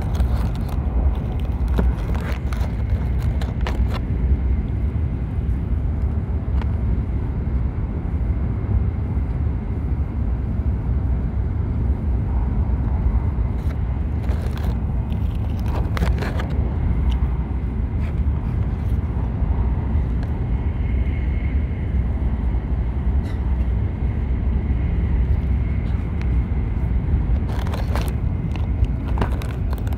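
Joetsu Shinkansen bullet train running at speed, heard from inside the passenger cabin: a steady low rumble with a few short clicks scattered through it.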